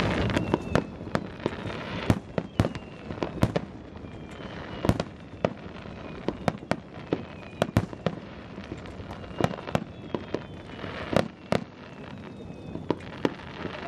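Fireworks bursting: many sharp bangs and cracks in quick, irregular succession over a steady rumble of further distant bursts.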